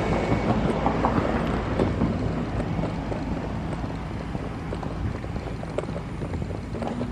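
A vehicle running with a steady low hum, and wind noise on the microphone.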